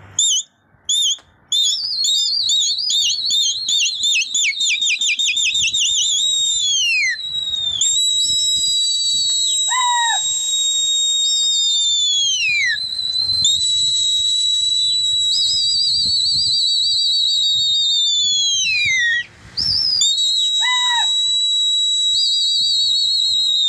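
Loud, shrill whistling from a pigeon keeper to his flock in flight. It opens with warbling trills, then goes into long held notes that drop off at their ends, with a brief break about three-quarters of the way through.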